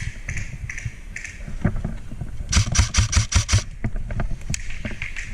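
An airsoft gun firing a quick string of about seven sharp shots lasting about a second, midway through. Before it come a few softer, scattered crunches.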